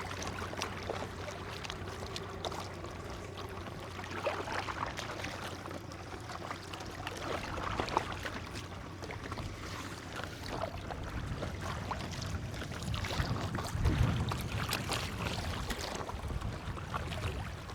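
A small boat being paddled across the water: irregular paddle strokes and splashes every few seconds over a steady low hum.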